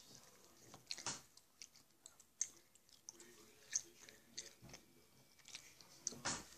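A person chewing a stick of gum: faint, irregular mouth clicks and smacks, a few sharper ones spread through.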